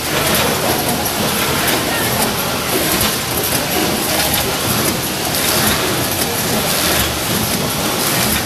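Form-fill-seal pouch packing machine running, a steady loud mechanical noise.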